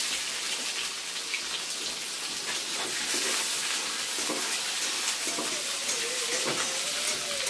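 Sliced onions and garlic sizzling steadily in hot oil in a steel kadai, stirred now and then with a metal spatula.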